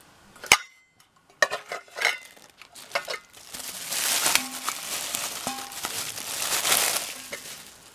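Stainless steel mixing bowls being nested into one another: a sharp metal clink about half a second in, then a few lighter clinks with brief ringing. After that comes a few seconds of rustling noise.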